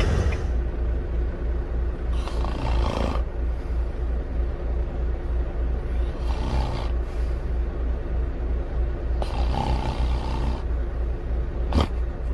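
Semi truck's diesel engine running at low speed, a steady pulsing low rumble heard from inside the cab. A brief sharp click comes near the end.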